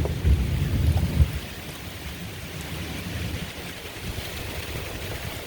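Thunderstorm winds rushing steadily, with a heavy low rumble of thunder or wind gusts that eases after about a second and a half.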